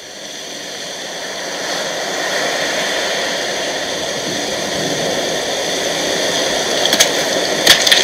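Steady rush of sea surf and wind, fading in over the first couple of seconds, with a few sharp clicks near the end.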